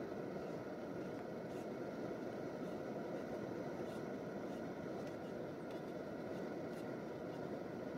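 Steady low rushing background noise, with faint light clicks now and then of a spoon against a metal pot during eating.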